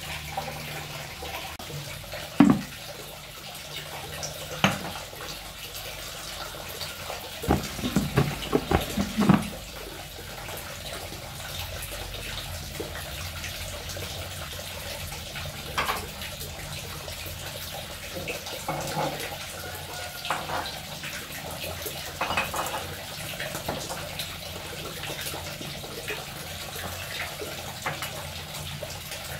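Kitchen tap running steadily into a sink, with scattered knocks and clatter of containers and bottles being handled, including a quick run of several knocks about a third of the way through.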